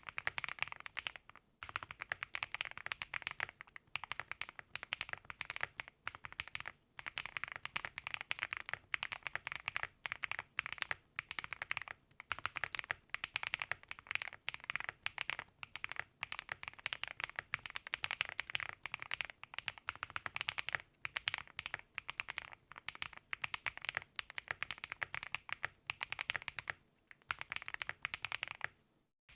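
Fast, continuous typing on a QwertyKeys QK75N gasket-mount mechanical keyboard with a POM plate and factory-lubed Punkshoo Cream Soda/Summertime frankenswitches: a dense run of key clacks, with brief pauses now and then.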